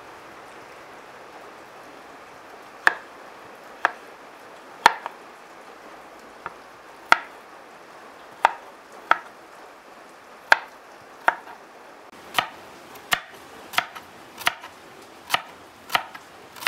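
Kitchen knife chopping peeled potatoes and carrots on a wooden cutting board: single sharp knocks of the blade hitting the board, spaced a second or so apart at first, then coming faster and more evenly over the last few seconds.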